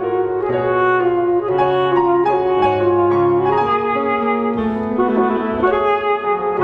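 Alto saxophone playing a melody of held notes over chords on a Bösendorfer grand piano.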